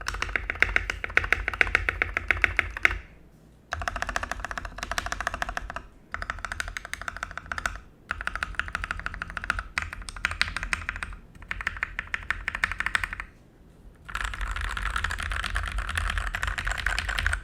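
Fast typing on an Ajazz K870T mechanical keyboard with Huano red linear switches, a steel plate and ABS keycaps: dense runs of keystrokes in bursts of a few seconds, broken by short pauses, one slightly longer near the end.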